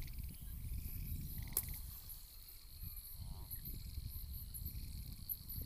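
Wind rumbling on the microphone over a steady, high chirping chorus of insects, with a short croaking call about three and a half seconds in and a single click about a second and a half in.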